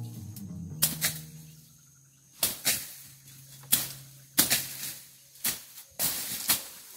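Machete (cutlass) slashing through weeds and brush: about ten sharp swishing cuts at an uneven pace, several coming in quick pairs.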